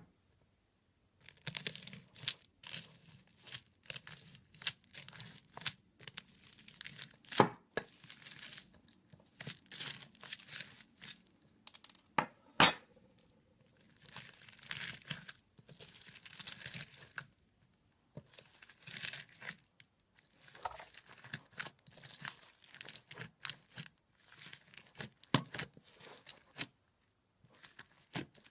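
Slime being handled, crackling and popping in runs of a second or two with short pauses between them, with a couple of sharper snaps.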